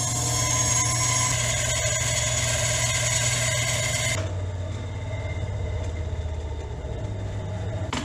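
Benchtop band saw cutting a curve through plywood: the motor hums under a bright hiss of the blade in the wood. About four seconds in the hiss drops away and the saw runs on more quietly, then stops near the end.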